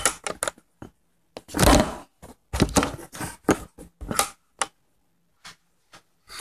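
Beatboxing: an irregular run of mouth-made clicks, kick-drum-like thumps and snare-like noisy bursts, the heaviest thump about a second and a half in. The pattern thins out to a few scattered clicks with short gaps of silence in the second half.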